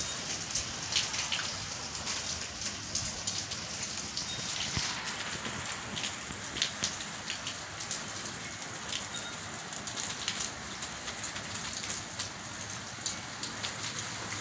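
Light winter hail mixed with rain falling: a steady patter dotted with many sharp ticks.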